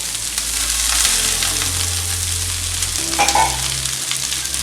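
Chopped onions sizzling in hot oil with ginger and garlic in a pan, stirred with a spoon that clicks against the pan. A brief pitched sound comes a little past three seconds in.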